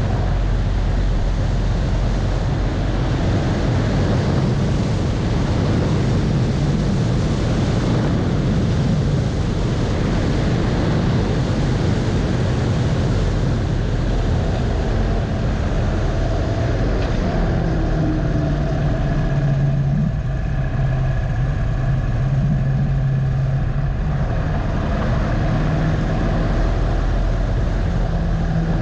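Harley-Davidson Dyna Low Rider's V-twin engine running under load, mixed with heavy wind rush on the microphone at speed. About halfway through, as the bike slows, the wind eases and the engine's low tone comes through more clearly, with brief shifts in pitch.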